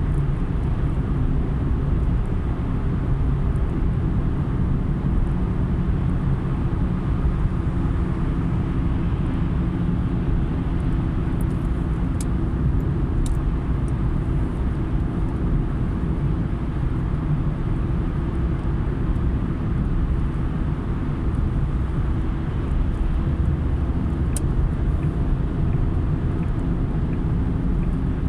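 Car driving on a wet road: a steady low rumble of engine and tyres with an even drone, and a few faint clicks.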